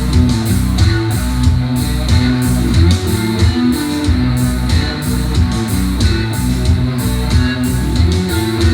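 Music with guitar, bass guitar and a steady drum beat, played back as a sound test through an FX Audio Tube 03 tube preamp and Edifier R1280 bookshelf speakers.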